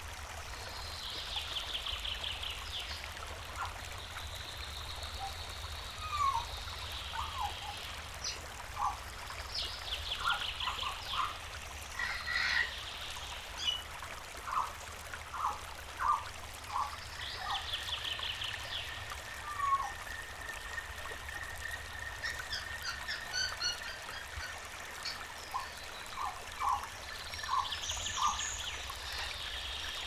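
A river flowing steadily with birds calling over it. A rapid high trill comes back about every eight or nine seconds, short lower chirps are scattered through, and a long steady high tone runs through the second half.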